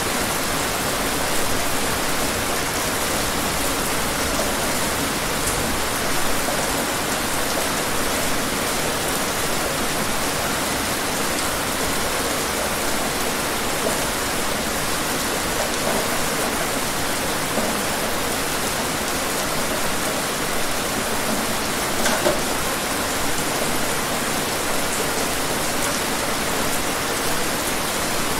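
Steady rain falling, an even hiss of many drops with a few sharper individual drop hits on a surface.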